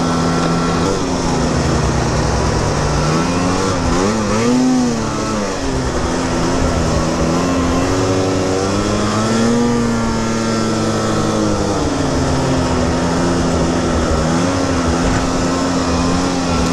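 Snowmobile engine running under way, its pitch rising and falling several times as the throttle is worked, over a steady rushing noise.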